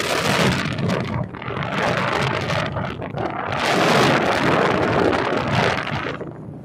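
Strong wind buffeting the phone's microphone on a moving ATV, gusting up and down as a loud rushing noise. It drops away about six seconds in.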